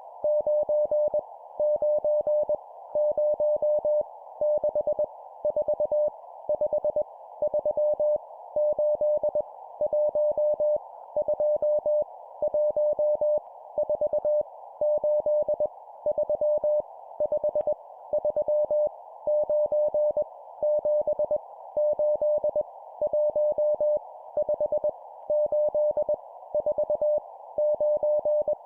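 Morse code practice tone sending random numbers at 20 words per minute: a single steady mid-pitched tone keyed on and off in dots and dashes, in characters separated by short pauses. A steady narrow band of hiss lies under it throughout.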